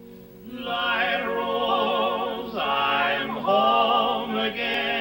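Male barbershop quartet singing long held chords in close harmony with vibrato, swelling in about half a second in.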